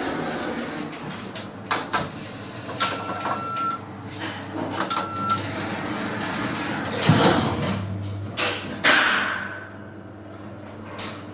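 ThyssenKrupp ISIS lift in operation: scattered clicks and two short beeps, a loud clunk about seven seconds in, and the doors sliding.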